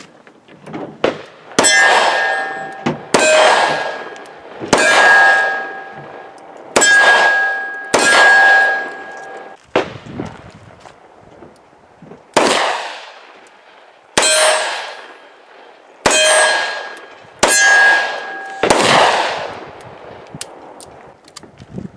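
Taurus 85 Ultra Lite .38 Special revolver fired at steel: two strings of five shots, each shot followed by the ringing clang of the struck steel plate. There is a pause of a few seconds between the strings while the five-shot cylinder is reloaded.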